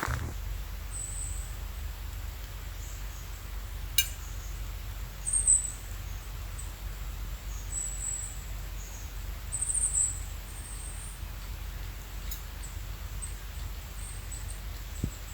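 Still woodland with a steady low rumble underneath. A few faint, very high-pitched chirps come now and then from a small animal, bird or insect, and there is one sharp click about four seconds in.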